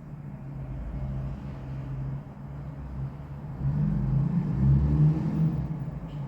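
An engine running steadily with a low hum. It grows louder about three and a half seconds in, then eases off near the end.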